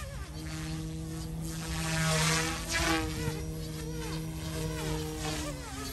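YXZNRC F280 RC helicopter in flight, its dual brushless direct-drive motors and rotor making a steady whine and buzz whose pitch wavers as it manoeuvres. It gets louder, with more rushing rotor noise, about two to three seconds in.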